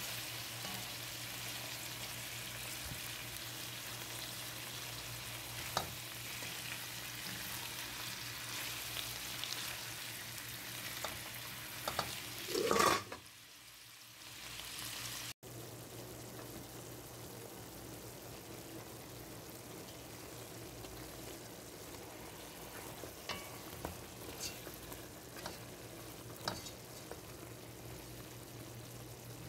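Mutton pieces with onions and whole spices sizzling as they fry in oil, stirred with a silicone spatula, with scattered small clicks. A brief louder noise comes about 13 seconds in, and the sizzle is quieter in the second half.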